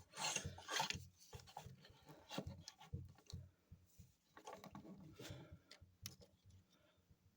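Faint handling of a plastic knockoff Masterpiece Smokescreen Transformers figure as its parts are moved and folded by hand: irregular small clicks and taps with light rubbing of plastic on plastic.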